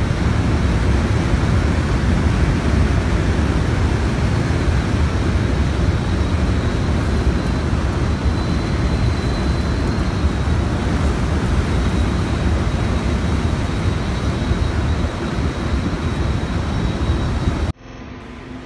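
Strong storm wind, 30–35 knots, blowing across the microphone: a loud, steady rush heavy in the lows, which cuts off abruptly near the end.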